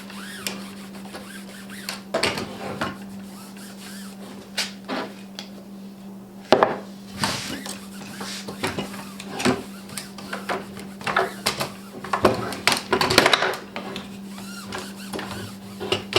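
Steel bar clamps clinking and knocking as they are handled and rubbed down with paste wax, in irregular taps with a busier clatter near the end, over a steady low hum.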